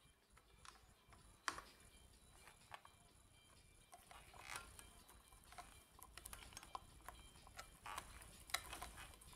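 Near silence with scattered faint clicks, a few more of them in the second half.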